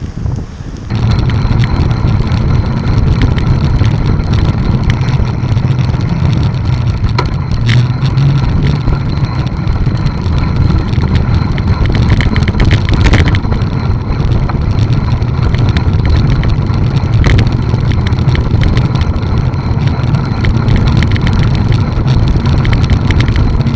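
Steady loud rumble of wind buffeting and road vibration on a bicycle-mounted camera's microphone while riding, with car traffic alongside. It gets suddenly louder about a second in, and a few short clicks come through.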